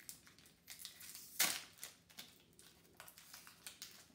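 Foil wrapper of a Pokémon card booster pack crinkling as it is picked at and torn open by hand, with one louder crackle about a second and a half in.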